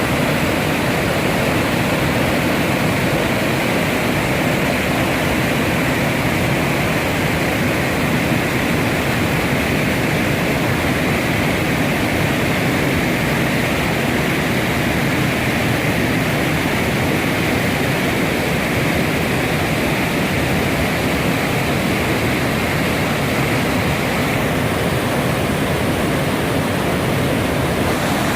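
Mountain stream rushing steadily over rocks in a valley, a loud continuous rush of water.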